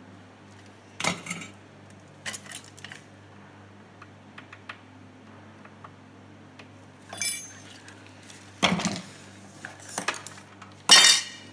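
Hand tools and metal bits clattering as they are handled and set down on a workbench: a string of sharp knocks and rattles, the loudest near the end, over a faint steady hum.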